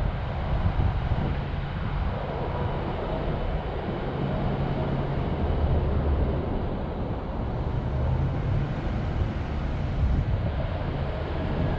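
Steady outdoor rumble of vehicle engines and traffic in a parking lot, mixed with wind buffeting the microphone.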